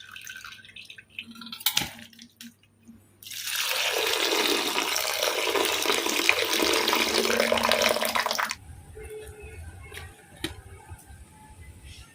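Water pouring and splashing steadily for about five seconds, starting a few seconds in, preceded by a single sharp knock.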